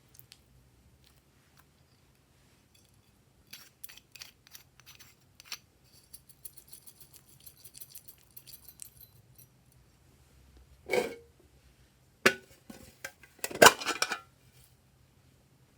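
Small clicks and a light crackling patter from slime and small hard items being handled, then a few louder sharp pops and clinks near the end, the last the loudest.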